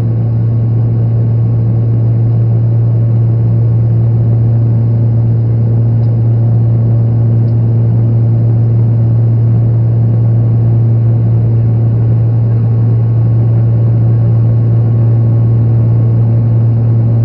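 Turboprop airliner's engine and propeller heard from inside the cabin: a loud, steady drone with a strong deep hum and fainter higher tones over a rushing noise.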